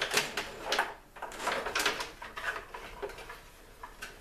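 A wooden cabinet holding a power converter being handled against wall framing: a string of light knocks, clicks and scrapes, irregularly spaced.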